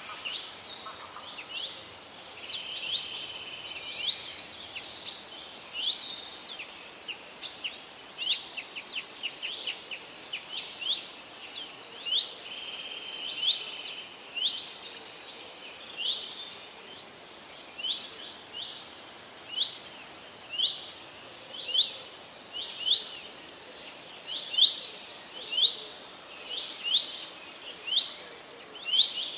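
Wild birds singing in forest: for the first several seconds a busy mix of chirps, trills and whistles from several birds, then one bird repeating a short, sharp note about once a second, over a faint steady hiss.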